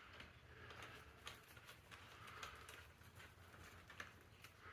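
Near silence with faint scattered clicks and light taps: an Allen wrench and small bolts being handled during e-bike assembly.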